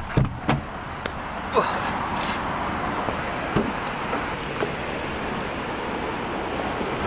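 A car door being opened, then a few clicks and knocks as a Kia's tailgate is unlatched and lifted, over a steady hiss.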